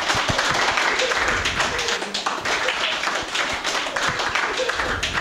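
Audience applause: many hands clapping in a dense, continuous run.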